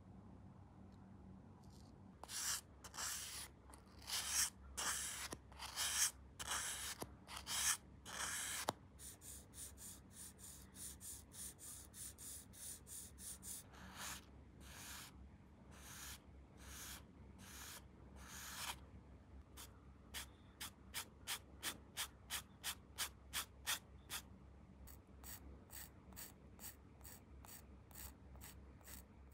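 Sandpaper rubbed by hand on a plastic model-kit part: a series of short scratchy back-and-forth strokes, slower and louder at first, then quicker and even, about three a second.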